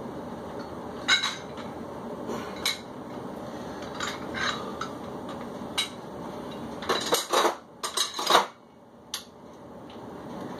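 Metal dumbbells clinking and knocking a few times, then a quick run of louder clanks about seven to eight and a half seconds in.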